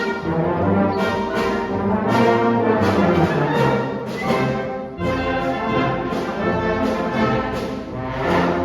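Community concert band playing a comic trombone novelty piece, brass to the fore, in sustained chords with a short upward slide in pitch about four seconds in.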